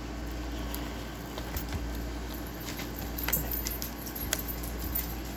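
Scattered light clicks and ticks over a steady low hum, thickest in the second half.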